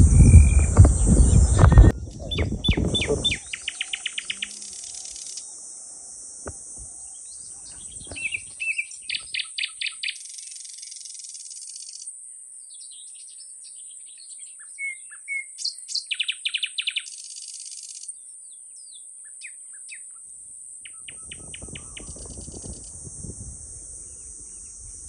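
Birds calling in short, rapid chirping trills, in several separate bouts, over a steady high insect buzz. A loud low rumble fills the first two seconds.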